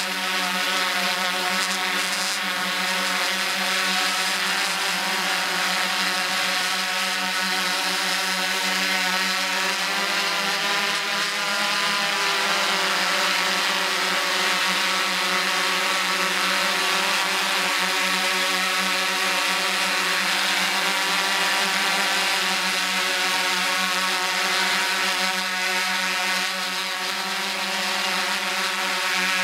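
Quadcopter drone's electric motors and propellers humming steadily, the pitch shifting briefly up and back about ten to thirteen seconds in as the drone changes thrust.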